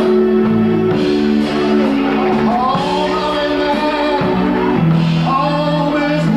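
Male singer singing through a hand microphone over backing music with long held chords; his voice holds and bends sustained notes.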